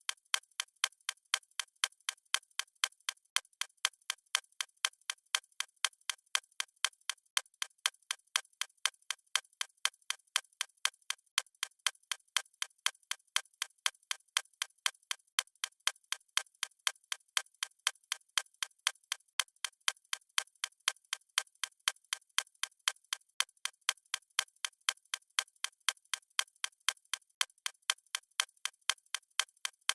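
A watch ticking: a steady, even run of light, sharp ticks with nothing low in them.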